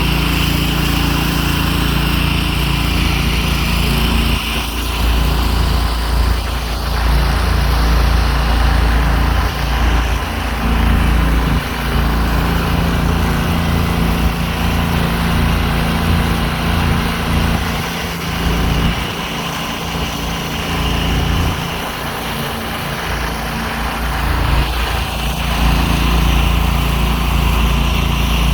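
Gas-engine pressure washer running steadily at working speed, a constant engine drone with a heavy low rumble that swells and dips.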